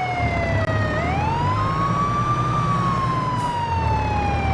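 Ambulance siren in a slow wail: its pitch rises about a second in, peaks midway, then falls slowly, over a low steady rumble.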